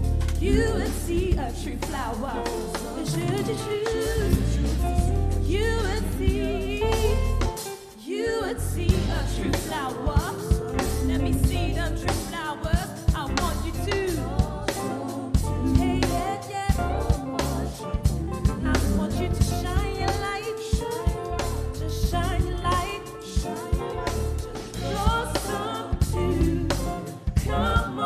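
Live soul band playing: a woman sings over drum kit, keyboards and bass, with a short break in the music about eight seconds in.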